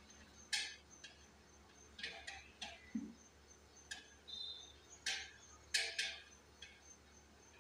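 Faint, irregular rustles and clicks of fabric and lace trim being handled and positioned at a sewing machine, about a dozen short sounds spread unevenly, with a brief high chirp about four seconds in.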